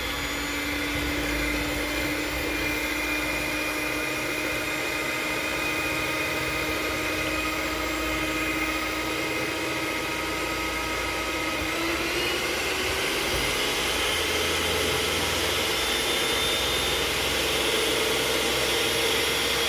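Master Chef electric hand mixer running, its beaters whisking raw eggs in a stainless steel bowl with a steady motor whine. A little past halfway the whine climbs in pitch as the motor speeds up.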